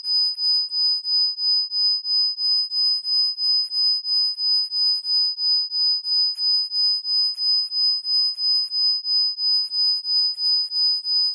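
Electronically generated 5000 Hz sine tone (a 'Rife frequency'), steady in pitch and pulsing in loudness about three times a second, with a fainter lower tone beneath it. Stretches of a very high fluttering layer come and go above it.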